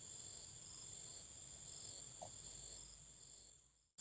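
Insects chirping: a faint, steady high buzz with pulses repeating a little under twice a second. The sound cuts off to silence just before the end.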